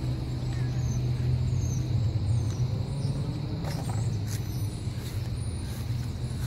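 Fire engine's diesel engine idling, a steady low hum.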